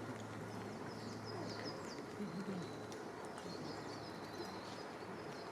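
Forest ambience of small songbirds singing in runs of short, high chirps, with a faint low wavering sound about two seconds in.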